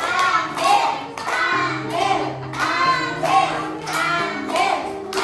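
Children singing a song over instrumental music with held bass notes and a regular percussive beat.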